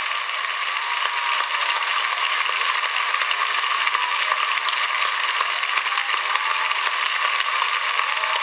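Congregation applauding, dense and steady clapping from a large crowd, swelling a little in the first second.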